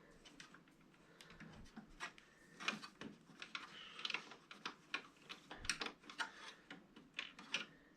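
Scattered light clicks and taps, a few a second at irregular spacing, of hands handling hard plastic and metal parts of a 3D printer while working at its transit screws.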